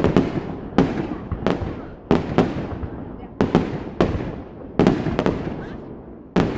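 Aerial fireworks bursting overhead: about a dozen sharp bangs at irregular intervals, some in quick pairs, each trailing off in a fading echo.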